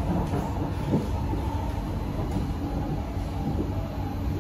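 Steady rumble of a Kawasaki–CSR Sifang C151A metro train running, heard from inside the passenger car, with small irregular knocks from the wheels on the track.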